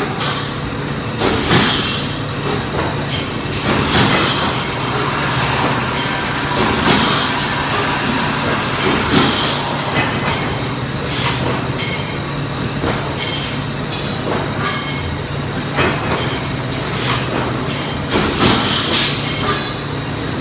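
CNC plasma cutter cutting stainless steel plate: a loud, continuous hiss and screech over a steady machine hum, with scattered sharp clicks. The hiss is harshest from a few seconds in to about halfway through.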